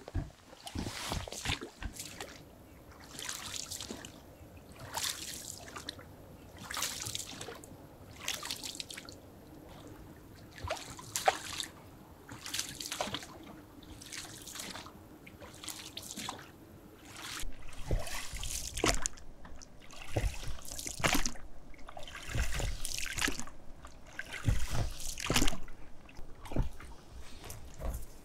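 Oars of an inflatable rowing boat splashing and dripping, a stroke about every second. The strokes grow louder and more irregular in the second half.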